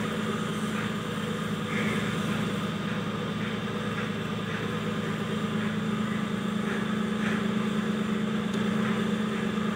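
Boat engine idling steadily with a low hum.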